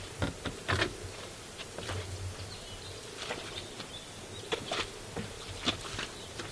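Brown bear's footsteps through dry grass and heather: irregular crunches and twig cracks, with a low rumble swelling twice in the first couple of seconds.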